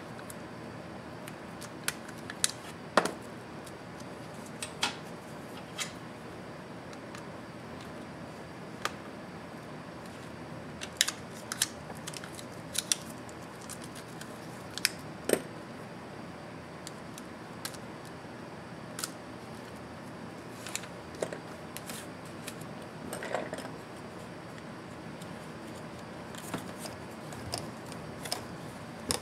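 Irregular sharp clicks and taps from a precision screwdriver working screws and small parts on a laptop's motherboard, over a steady faint hiss.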